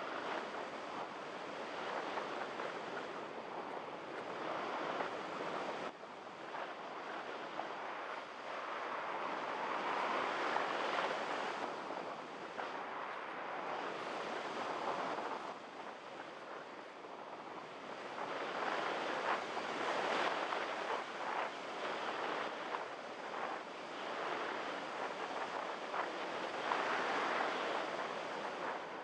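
Airflow rushing over the microphone of a camera riding aboard a Multiplex EasyStar RC model plane in flight: a steady noisy rush that swells and fades several times.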